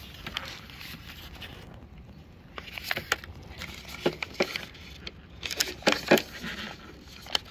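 Small kraft-paper packet rustling and crinkling as gloved fingers handle it on the board's deck, with groups of sharp crackles about three seconds in, around four seconds and again around six seconds.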